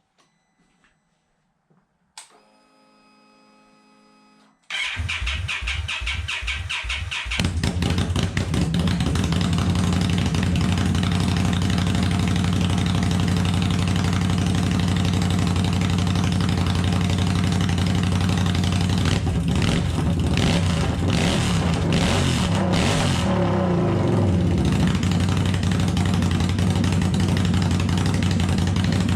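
A 2017 Indian Scout's V-twin is started on open headers with no mufflers fitted. A click and a faint whine come about two seconds in. The starter cranks about five seconds in, the engine catches a couple of seconds later and runs loud and steady, and its note rises and falls briefly a few times around twenty seconds in.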